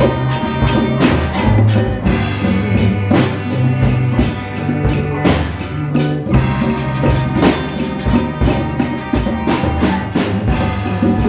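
Live rock band playing: electric bass holding a bass line under drum kit beats and hand-drum strikes, with electric guitar.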